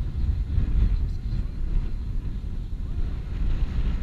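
Wind buffeting the microphone: an uneven low rumble that swells and dips throughout.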